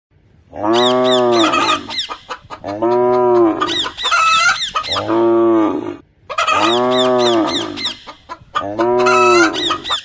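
Farm-animal sound effects: a cow mooing five times, each moo about a second long, with higher chirping and clucking bird calls mixed over them.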